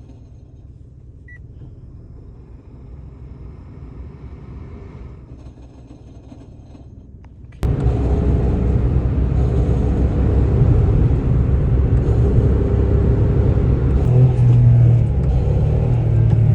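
A Mitsubishi Mirage idling with a low rumble, then about seven and a half seconds in a much louder, steady grinding rumble cuts in suddenly and keeps going. This is the grinding noise that comes on with the car's air conditioning.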